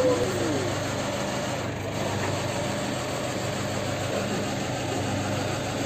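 Flatbed tow truck's engine idling steadily, with a brief squeak at the very start.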